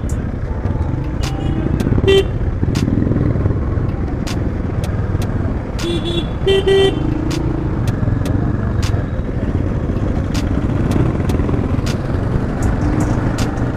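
Steady engine, wind and road noise of a motorcycle ride on a highway. A vehicle horn gives a short toot about two seconds in and a quick series of toots around six to seven seconds in.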